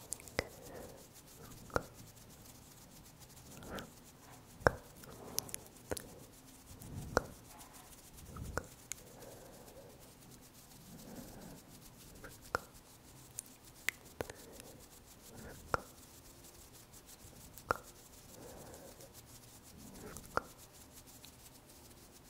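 Close-miked ASMR hand movements: soft rubbing and rustling broken by irregular sharp little clicks, a dozen or so spread unevenly through the stretch.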